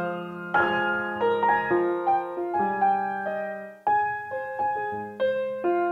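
Background piano music: a slow run of sustained single notes and chords, with a brief dip about four seconds in.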